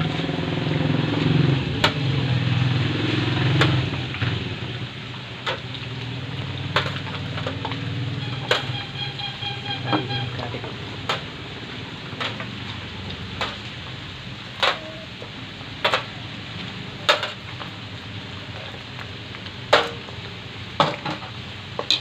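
Pork fat pieces deep-frying in hot oil in a wok, crisping into chicharon, with a steady sizzle. Sharp clacks and pops come every second or so as the pieces are stirred and turned with a wooden spatula and tongs.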